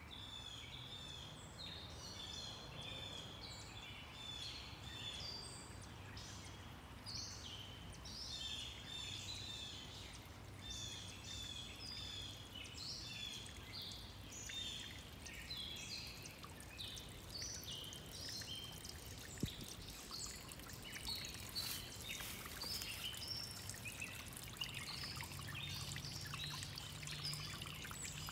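Shallow woodland brook trickling over stones, with songbirds calling throughout in quick runs of short chirps.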